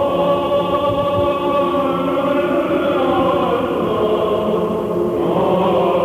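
Greek Orthodox Byzantine chant: voices singing a slow line of long held and gliding notes over a steady drone.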